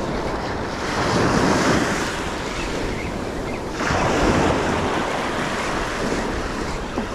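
Small surf breaking and washing up the beach, in two surges: one about a second in and another that sets in suddenly about four seconds in. Wind buffets the microphone.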